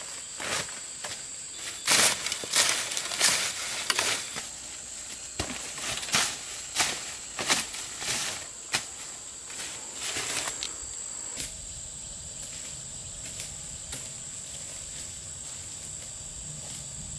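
Irregular knocks and crackling rustles of a bamboo digging stick working in dry bamboo leaf litter, stopping about eleven seconds in. A steady high-pitched insect drone runs underneath.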